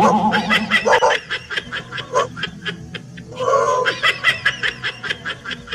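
A person snickering, laughing in quick breathy bursts of about five a second.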